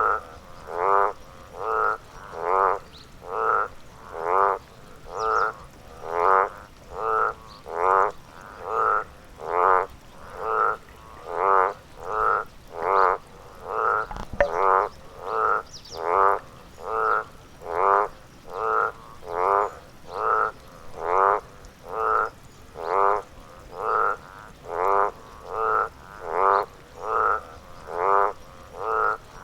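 A frog croaking over and over in a steady rhythm, about one short croak a second.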